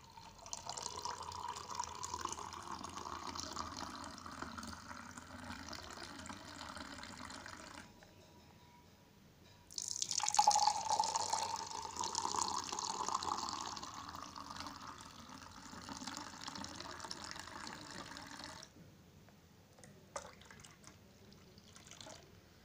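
Frothy blended cold coffee poured in a thin stream from a mixer jar into a glass, with a slowly rising tone as the glass fills. It stops for a moment about eight seconds in, then a second glass is filled the same way, followed near the end by a few brief splashes from a short top-up pour.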